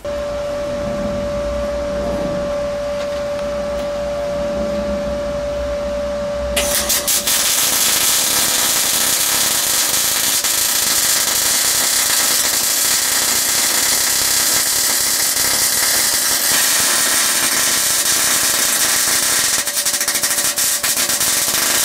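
MIG welding steel: a continuous dense crackle and hiss of the arc that starts suddenly about six and a half seconds in and runs on at an even loud level. Before it, a steady hum with a single held tone.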